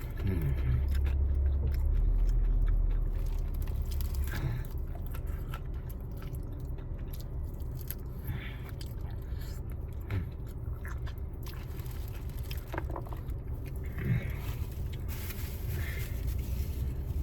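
A person biting into and chewing fried chicken wings, with a low rumble in the first few seconds.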